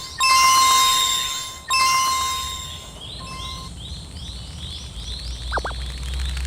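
Cartoon level-crossing bell effect: two loud chime-like strikes about a second and a half apart, each ringing out and dying away. After them a quicker, fainter chirp repeats, and a low hum swells near the end.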